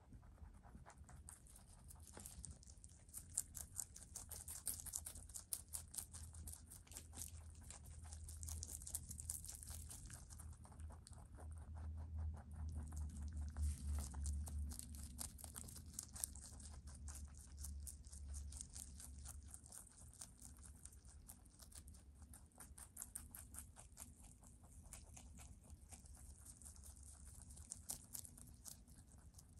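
Two rabbits munching leafy greens (lettuce, collard greens, parsley): fast, crisp crunching and the tearing of leaves. A low rumble runs under it from about seven to twenty seconds in.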